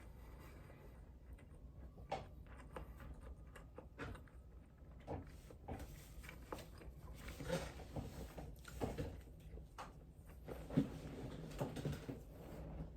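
Close-miked chewing: irregular wet mouth clicks and soft crunches, a few a second, growing busier and a little louder in the second half.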